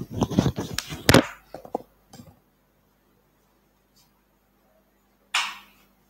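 Handling noise close to the microphone: a rapid clatter of knocks and rubs that stops about a second in, a couple of faint knocks, then a short rustling swish near the end.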